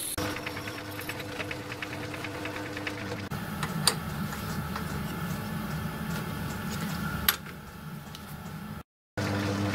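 A metal lathe runs while a twist drill bores into a chuck-held part, with a light regular ticking. Then comes a low hum broken by two sharp metal clicks as the four-jaw chuck is adjusted with its key. The lathe is running again briefly at the very end.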